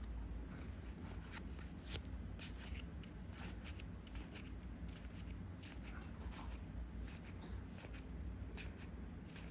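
Trading cards being handled and slid through one behind another, giving faint, scattered soft rubs and light clicks of card stock.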